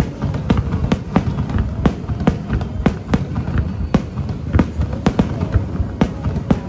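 Aerial fireworks display: a rapid, irregular string of sharp bangs and cracks from bursting shells, about three a second, over a continuous low rumble of booms.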